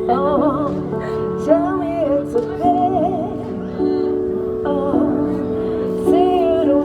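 A woman singing a slow melody with vibrato over held instrumental chords.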